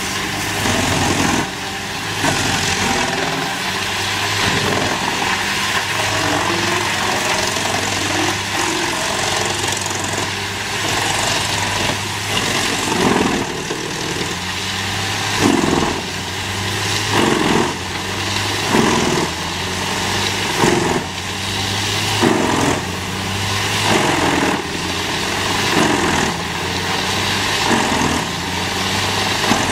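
Engine of a heavy wood-processing machine, likely a wood chipper, running steadily. From about halfway through, a loud burst comes roughly every two seconds over the engine, as if wood is being fed and broken up.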